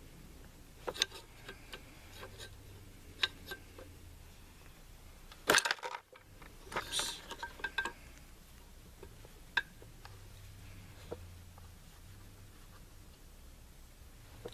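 Scattered metal clicks and clinks from hand tools and rifle parts being handled, with a louder knock about five and a half seconds in and a short cluster of clinks just after seven seconds.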